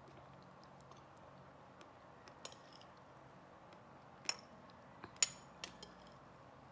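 Cutlery clinking against a dish during eating: about five short, sharp clinks, the loudest about five seconds in.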